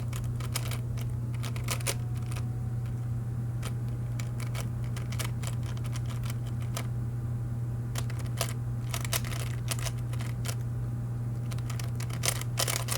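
3x3 Rubik's cube being turned quickly during a solve: irregular runs of sharp plastic clicks, over a steady low hum.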